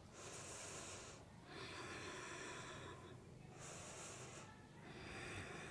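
Faint breathing from a person holding a yoga pose: slow breaths in and out, about four breath sounds of a second or so each, with short pauses between.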